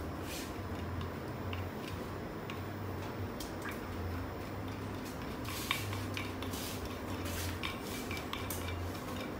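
A spoon scraping and clinking against an earthenware mortar as dipping sauce is scooped out and poured into small bowls, in scattered light clicks and scrapes. A low hum runs underneath.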